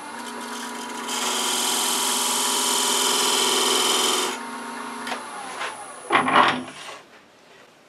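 Wood lathe running while a narrow turning tool cuts a groove into the spinning wooden box, with a loud scraping hiss for about three seconds as shavings come off. Near the end the lathe's hum drops in pitch as it winds down.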